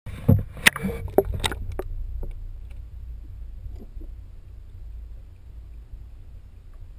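Water splashing and knocking against a waterproof action camera's housing as it goes under, with several sharp splashes in the first two seconds, the loudest right at the start. Then a steady low underwater rumble that slowly fades.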